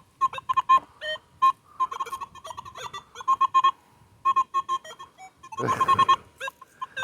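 Metal detector in park mode with no discrimination, beeping constantly: a rapid stream of short, overlapping tones from the many metal targets in trash-filled soil, thickest and loudest a little before the end, over a faint steady tone.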